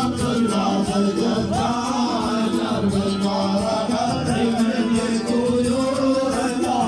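Arabic wedding song: voices singing over music with a steady low drone.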